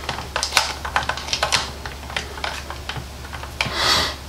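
Quick clicks and small knocks of accessories being handled and fitted back onto an AR carbine's handguard rail, thick at first and then sparser, with a short rubbing swish near the end.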